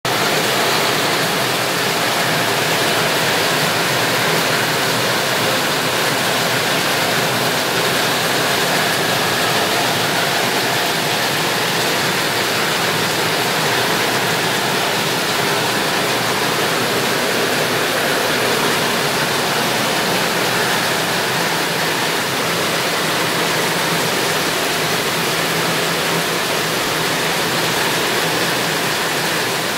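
Heavy tropical rain pouring onto clay-tiled roofs and dense leafy foliage: a loud, steady, unbroken rush.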